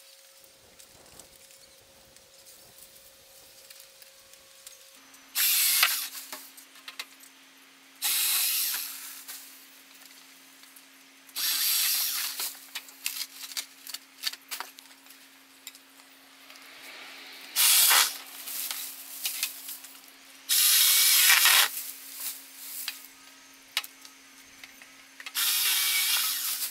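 Greenworks 40V 8-inch cordless pole saw running in short bursts, about six times, its chain cutting through queen palm frond stems.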